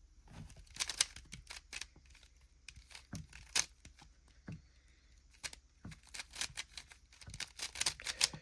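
Rubik's cube being turned quickly by hand: irregular plastic clicks and rasping clacks as the layers turn, coming thickest in quick runs near the end.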